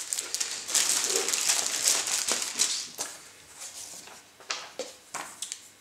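Clear plastic bag crinkling and rustling as papers are pulled out of it, for about three seconds, then quieter paper handling with a few light clicks.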